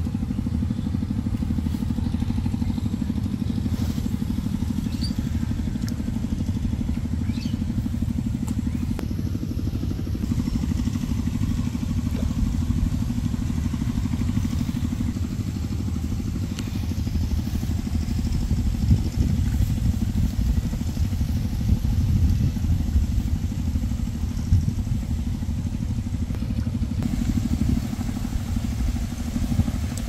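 Steady low rumble of wind buffeting the microphone, gustier in the second half.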